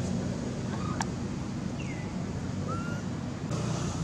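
Steady low rumble of outdoor background noise, with a few short, thin chirps that slide up or down in pitch and a single click about a second in.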